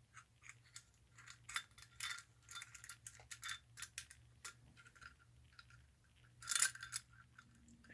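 Small metal parts of a toy train locomotive handled and fitted by hand: irregular light clicks and clinks as the drawbar and rear truck are worked into place, with a louder bit of clatter about six and a half seconds in. A faint steady low hum runs underneath.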